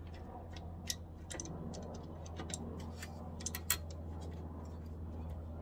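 Irregular light metal clicks and taps from a 2018 Toyota Sienna's rear brake caliper being fitted back onto its bracket and its bolt put in by hand, with one sharper click about two-thirds of the way through. A steady low hum runs underneath.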